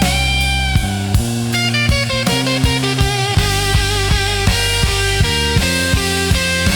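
Instrumental break in a slow soul-blues song: a lead guitar plays wavering, bent notes over sustained bass and a steady drum beat.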